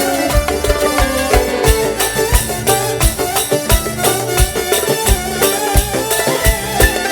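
Middle Eastern folk music: a band playing a melody over a steady drum beat.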